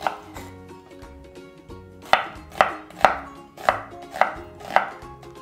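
Kitchen knife chopping a red onion into wedges on a wooden cutting board: one chop at the start, then from about two seconds in a steady run of six chops, about two a second.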